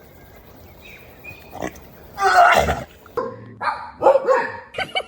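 A dog making strange vocal noises: one loud, rough, breathy burst a little over two seconds in, then a quick run of short, pitched whining yelps that bend up and down in pitch.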